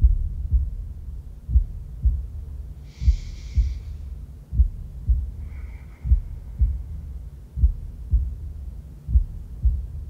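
Heartbeat sound effect: deep, even thumps about two a second over a low rumble, building tension. A brief hiss sounds about three seconds in.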